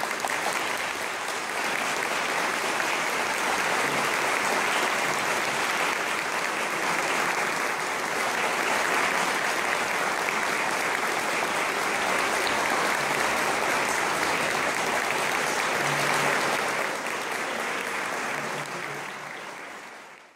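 Audience applauding: steady clapping that starts as the piece ends and dies away near the end.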